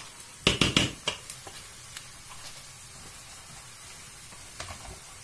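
Wooden spoon stirring a thick lentil-and-bulgur mixture in a stainless steel pot, with a quick run of four or five knocks against the pot about half a second in and a few faint scrapes and clicks after.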